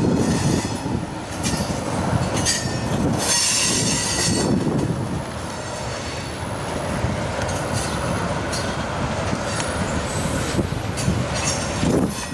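Freight train's tank cars and covered hopper cars rolling past close by: a steady rumble and clatter of steel wheels on rail, broken several times by brief high-pitched wheel squeal.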